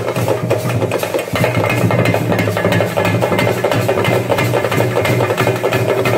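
Festival drum troupe playing a fast, dense beat on drums with a metal cymbal-like percussion, over a steady low hum.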